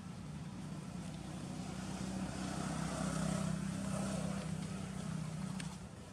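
Engine of a passing motor vehicle: a steady low drone that swells to its loudest midway and drops away near the end.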